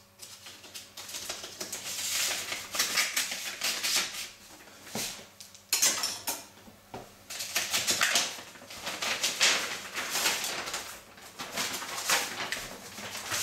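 A knife cutting and tearing open a paper mailing envelope, in irregular scraping and rustling bursts, then the envelope rustling as its contents are drawn out.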